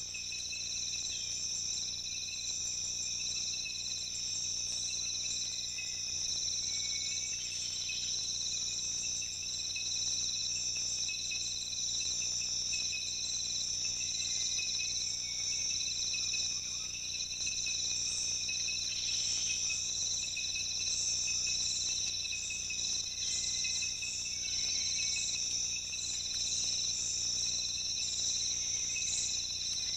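Steady chorus of rainforest insects, high-pitched trilling in several overlapping pitches with no break.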